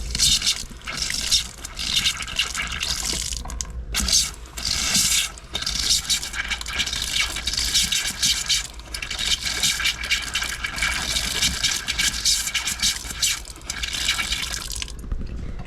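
Water running and splashing in a steady rush, broken by a few short pauses, cutting off shortly before the end.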